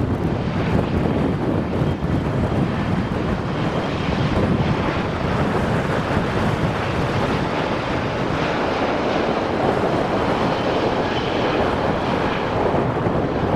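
Steady jet engine noise from an Airbus A350's Rolls-Royce Trent XWB turbofans as the airliner rolls along the runway, mixed with wind on the microphone.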